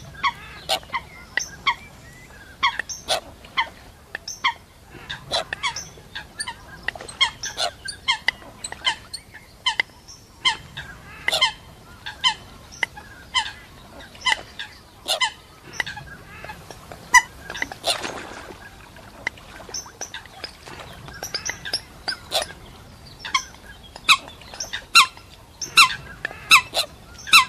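Water hens giving many short, sharp calls one after another, often less than a second apart. About eighteen seconds in there is a brief rushing noise.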